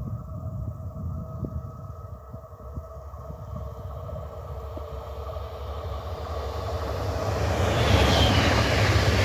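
A red DB Regio Bombardier Talent 2 electric multiple unit approaching at speed along the line, its rushing wheel and air noise growing steadily louder and reaching its loudest as it comes level near the end, over a low wind rumble on the microphone.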